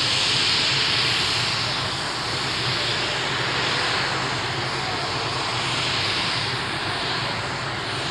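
Modified tractor-pulling tractor running at full power under load during a pull, a loud, steady, dense engine noise.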